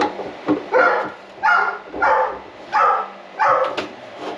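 A dog barking, about five barks in a row spaced well under a second apart.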